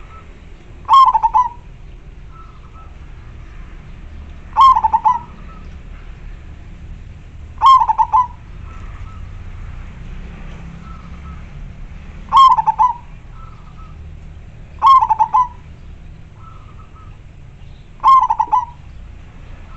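Zebra dove (perkutut) cooing in its cage: six short, loud rolling calls a few seconds apart, each opening with a quick rattle of notes, with fainter short notes in between.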